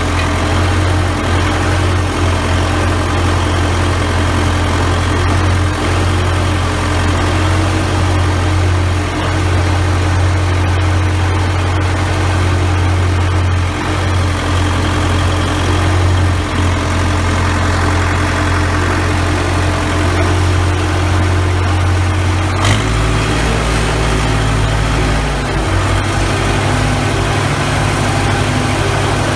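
Case 580B backhoe's four-cylinder diesel engine running steadily at low speed. About three-quarters of the way through there is a sharp click and the engine note changes abruptly, then runs on steadily.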